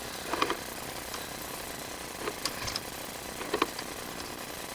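Drain inspection camera and its push cable knocking and clattering inside the pipe as it is fed along, in three short bursts of knocks over a steady hiss.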